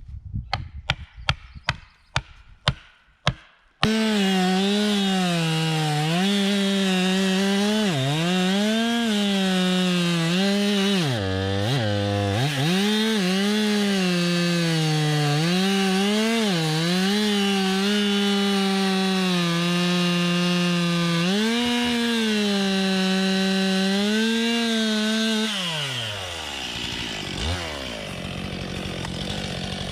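A series of sharp clicks, then a STIHL MS 261 two-stroke chainsaw comes in suddenly at high revs, about four seconds in. Its pitch dips and recovers again and again as the chain bogs in the cut. A little after 25 s it winds down to a quieter idle.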